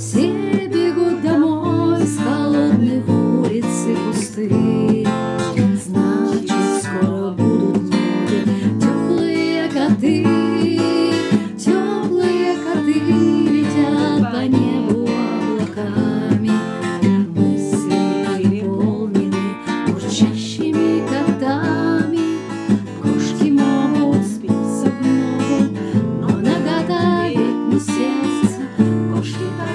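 Acoustic guitar strummed in a steady rhythm, accompanying a woman singing.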